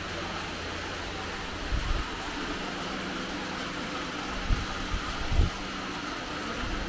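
Steady workshop background hum and hiss, with a few brief low thuds about two, four and a half and five and a half seconds in.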